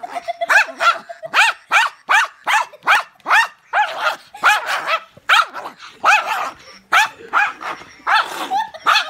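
Small dog barking rapidly and repeatedly at a plush toy duck waved in its face, about three short high-pitched barks a second with no break.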